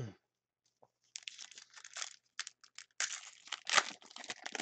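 A foil trading-card pack wrapper being torn open and crinkled by hand: dense, irregular crackling that starts about a second in.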